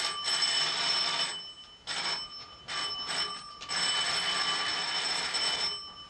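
Electric doorbell ringing in uneven presses: a long ring, three short rings, then another long ring.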